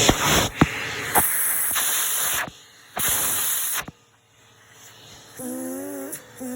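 Bissell PowerForce Helix upright vacuum cleaner running with a loud, steady rushing hiss of motor and airflow, plus a few clicks of picked-up debris. The sound cuts out briefly, comes back, then stops sharply a little under four seconds in. About five and a half seconds in, a few held, wavering pitched notes begin.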